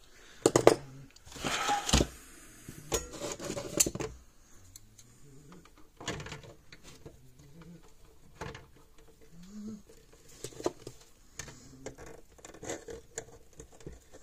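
Irregular clicks, taps and rattles of hand tools and wiring being handled inside an open plastic electric fence charger case, as pliers work the nut on the fuse mount. The clatter is busiest and loudest in the first four seconds, then thins to scattered small clicks.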